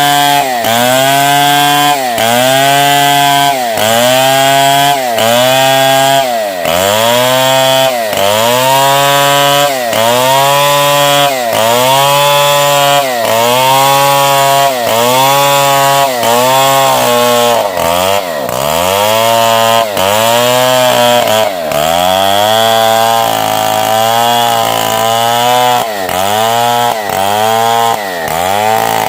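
Large two-stroke chainsaw, a Stihl 070, cutting lengthwise through a log under load, its engine note dipping and recovering in pitch about once a second as the chain bites into the wood.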